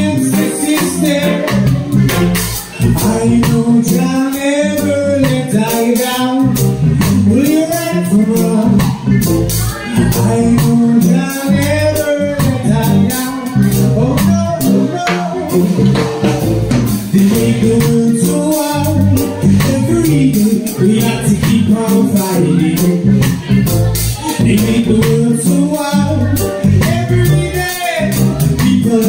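Live band playing: keyboard, bass guitar and drums with cymbals, with a voice singing over them.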